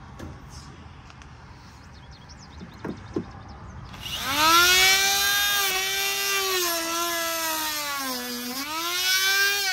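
Handheld rotary tool with a cutoff wheel switched on about four seconds in, spinning up fast to a high whine and running on, cutting plastic tabs on a vehicle's front bumper area. Its pitch sags briefly near the end as the wheel bites into the plastic, then recovers. Two light clicks come a second or so before it starts.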